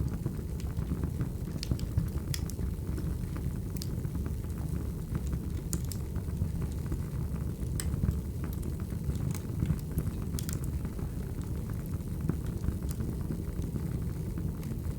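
Wood fire crackling: a steady low rumble of burning logs with sharp pops and snaps at irregular moments, roughly one a second.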